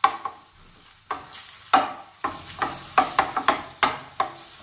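Crumbled sausage sizzling as it browns in a shallow stainless steel pan, stirred with a wooden spoon that knocks and scrapes against the pan several times a second. The sizzle grows steadier about two seconds in.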